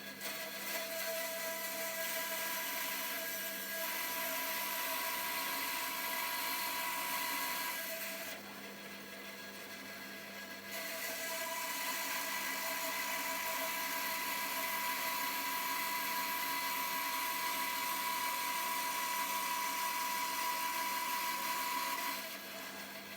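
Bandsaw cutting through the resin of a dalle de verre panel, a steady high-pitched whine over the running motor. The saw runs the whole time; the cutting eases off for a couple of seconds about a third of the way through, then comes back.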